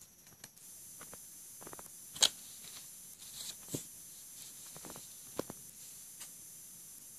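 Scattered light clicks and taps from a Samsung Galaxy Golden flip phone being handled and set down on a table, with one sharp click about two seconds in, over a faint steady hiss.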